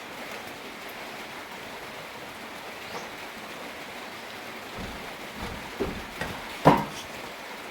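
Steady rain falling, with a few sharp knocks in the second half, the loudest about two-thirds of the way through.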